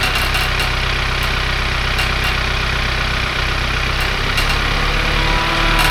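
An engine idling steadily, with a few light clicks now and then.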